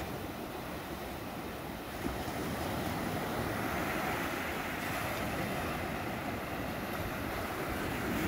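Small Black Sea waves breaking and washing up the sand at the water's edge, a steady rush of surf.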